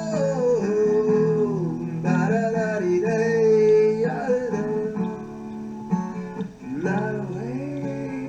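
Acoustic guitar strumming through the song's closing instrumental passage, with a sliding melody line held above it.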